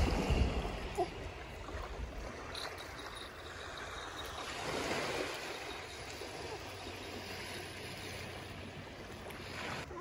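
Small waves washing on a sandy beach, a soft steady wash that swells briefly about halfway through. Wind rumbles on the microphone for the first second or two.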